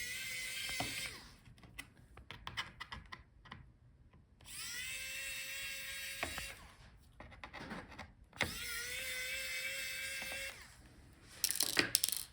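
Electric screwdriver with a T5 Torx bit whirring in three steady bursts of about two seconds each as it backs out laptop bottom-case screws. A few sharp clicks come near the end.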